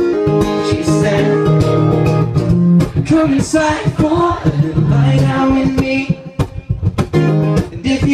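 Strummed acoustic guitar accompanying a male voice singing, a live performance.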